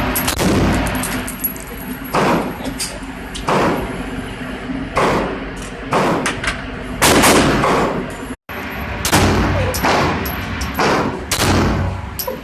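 Gunshots at a shooting range: about ten shots at irregular intervals, each with a ringing, echoing tail, some louder than others.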